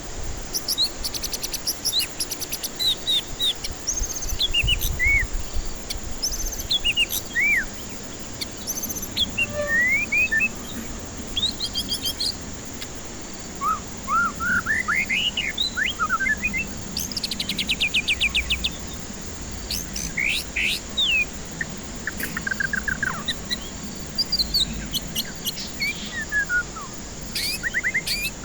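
White-rumped shama (murai batu) singing a varied series of short whistled phrases: rising and falling slurs and fast rattling trills. A thin, steady high ticking runs underneath.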